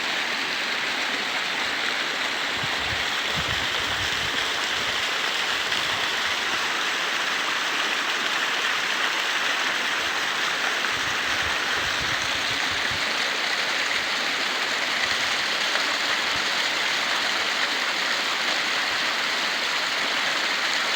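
Water rushing steadily, the even splashing noise of a stream, with occasional low rumbles underneath.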